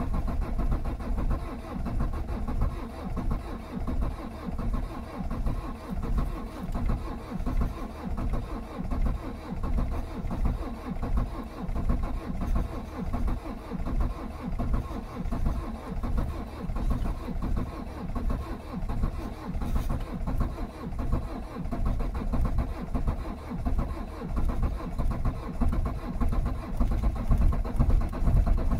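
Renault Megane's 1.9 dCi diesel engine in a −23 °C cold start, turning over and running with a steady, uneven pulsing beat that grows somewhat louder near the end.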